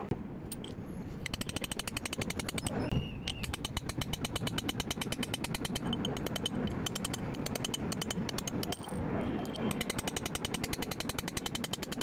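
A fast, even run of mechanical clicks, many to the second, starting about a second in, breaking off briefly near nine seconds and then picking up again.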